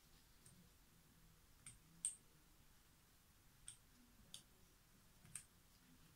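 Near silence broken by about six faint, sharp clicks of small metal engine parts being handled: a 29cc two-stroke engine's piston, washers and gudgeon pin being lined up on the connecting rod. The loudest click comes about two seconds in.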